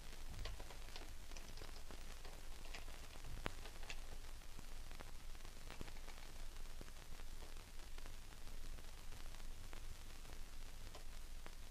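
Steady hiss with scattered faint clicks and crackles, several sharper ones in the first four seconds and fewer after.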